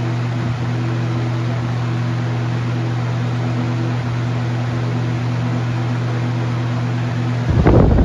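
A 20-inch box fan running steadily with its shaded-pole motor: an even rush of air from the blade over a steady electrical hum. Near the end the air blusters loudly against the microphone.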